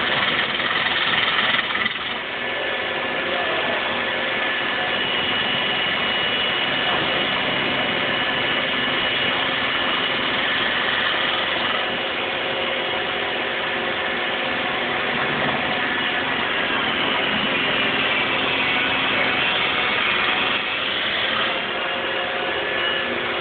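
Wood lathe running steadily while a piece of red cypress driftwood is turned, a continuous whir of the spinning workpiece and the tool cutting it.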